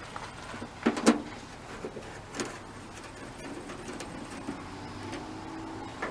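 A screwdriver backing out the screws that hold a tail light housing on an early VW bus, heard as sharp metal clicks: a pair about a second in, the loudest, and another a little later.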